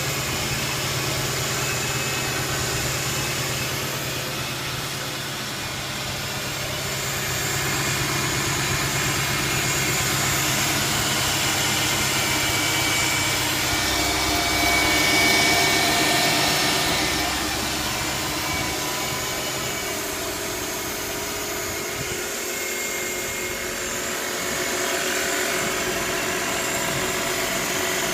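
2007 Mercedes-Benz CLS550's 5.5-litre V8 running at idle, with the unexplained weird noise its owner is asking about. A steady low hum shifts about halfway through, and a thin high whine comes and goes in the middle.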